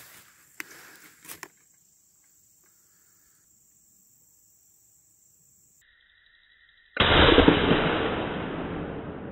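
A single shot from a .58 calibre 1853 Enfield replica black powder percussion rifle, about seven seconds in: a sudden loud boom with a long tail that fades over the next few seconds.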